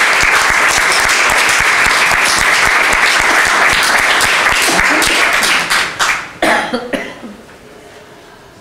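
Audience applauding. The clapping fades at about five and a half seconds in, a few last claps follow, and then it stops.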